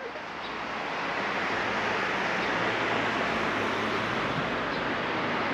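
Steady road and wind noise of a car driving, with a low engine hum underneath, fading in over about the first second. A few faint high chirps sound over it.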